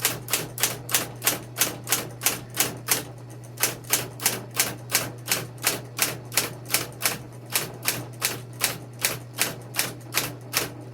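SCM Smith Corona Coronet Electric 12 portable electric typewriter typing key after key in shift lock, about three to four even strikes a second, over the steady low hum of its running motor.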